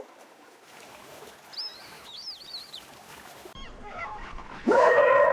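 Faint, short bird chirps, then a loud, pitched animal call that rises at its start and holds steady near the end.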